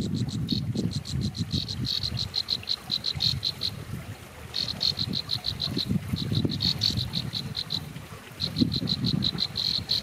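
An insect's pulsed trill, about eight pulses a second, in runs of a few seconds with short breaks, over a low, uneven rumble.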